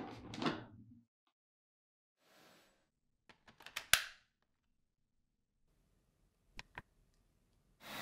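Plastic clicks and clunks of a Dyson V12s Detect Slim cordless vacuum's attachments being fitted. There is a clatter at the start, a run of clicks about four seconds in ending in one sharp snap as an accessory tool locks on, and two quick clicks later. The vacuum's motor starts up with a steady whir right at the end.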